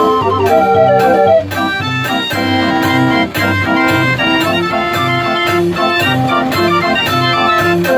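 42-key Heesbeen fairground organ playing a tune: pipe melody and chords over a bass that pulses in a steady rhythm, about twice a second.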